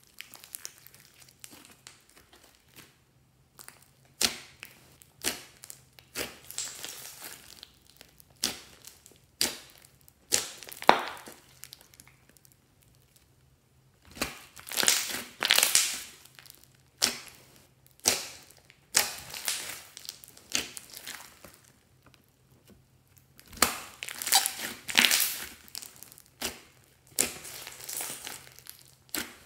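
Hands squeezing, stretching and pressing glossy slime mixed with small foam beads, giving irregular squishes of a fraction of a second to about a second each, with a short quiet pause about twelve seconds in.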